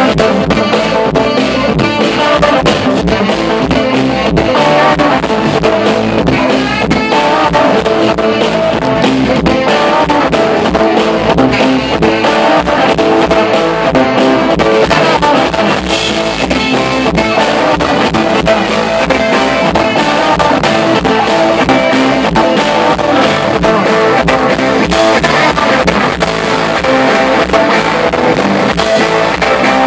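Live band music, loud and continuous, with an electric guitar out front over a drum kit.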